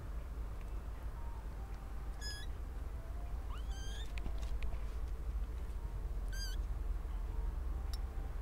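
Month-old kittens mewing: three short, high-pitched mews spread over several seconds, the second one sliding up in pitch.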